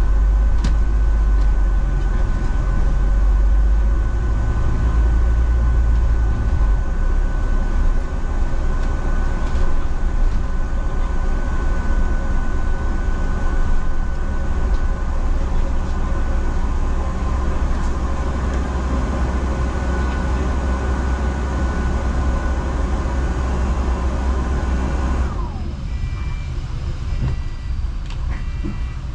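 Interior noise of a double-decker city bus on the move, heard from the upper deck: a steady low rumble of engine and road, with a thin steady whine over it for the first half. Near the end the rumble drops away as the bus slows, and a few short beeps sound.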